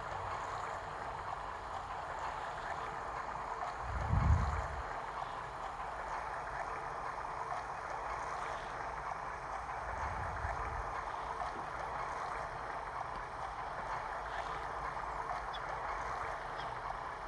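Steady white-noise soothing sound played from a baby sleep-sounds phone app, an even hiss-like rush with no change, and a short low thump about four seconds in.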